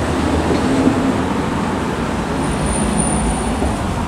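Steady city street traffic: passing vehicles making a continuous rumble and hiss. A thin, high steady whine comes in about two and a half seconds in.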